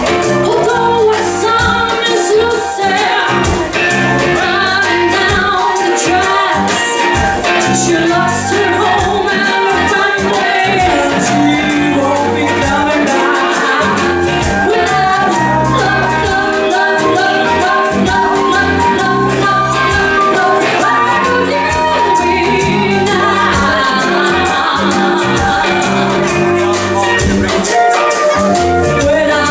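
Live funk band playing a song: drum kit, congas and electric guitar under a sung vocal line.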